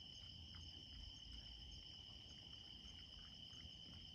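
Faint, steady chorus of night insects, trilling continuously at two high pitches.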